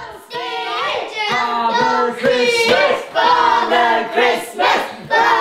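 Young children singing together in high voices, phrase after phrase.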